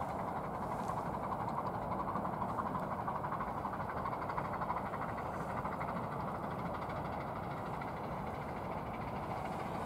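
Miniature railway train running steadily along the track, a continuous rumble of its wheels on the rails.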